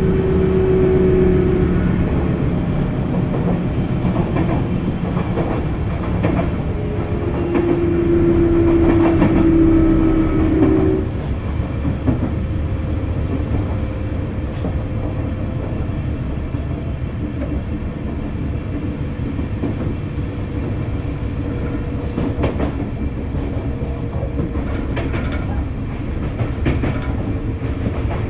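Running sound inside a Sotetsu 8000 series electric train with Hitachi GTO-VVVF traction equipment. A steady electric whine from the traction equipment rides over the rolling noise until about eleven seconds in, then stops as the sound drops a little. Near the end the wheels click over rail joints.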